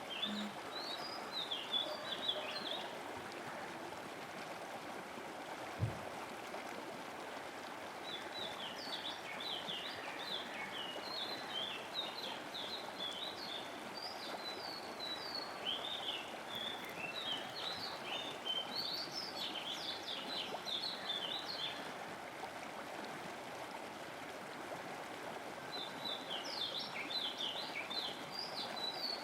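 Small birds chirping in bouts of quick, high twittering notes over a steady rush of flowing water, with a single brief low thump about six seconds in.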